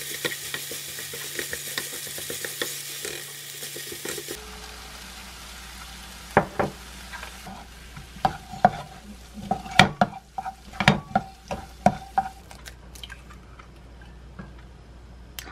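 Kkakdugi fried rice sizzling in a nonstick frying pan while a spatula stirs and scrapes through it. About four seconds in the sizzle dies down, then the spatula knocks and scrapes sharply against the pan a dozen or so times.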